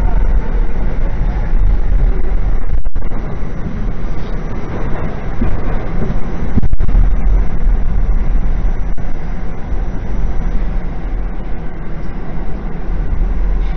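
Subway train running, heard from inside the passenger car: a loud, steady rumble of wheels on rails. The sound cuts out for an instant twice, a few seconds apart.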